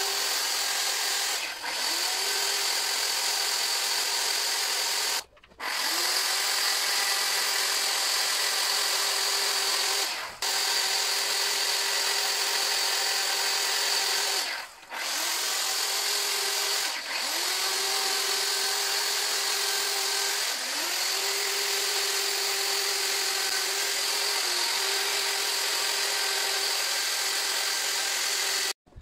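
Chainsaw running at high revs while carving a log sculpture. The cutting note is steady and high. It drops out briefly several times, about 5, 10 and 15 seconds in, and each time spins back up to speed.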